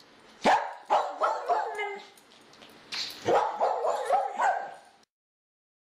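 Dog barking in short, quick barks, in two runs with a pause between. It cuts off suddenly about five seconds in.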